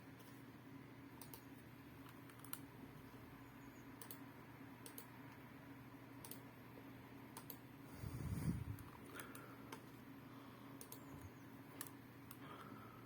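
Sparse, quiet clicks at a computer, about one a second, as the cube's colours are entered one by one into the program's form buttons, with a soft low thump about eight seconds in.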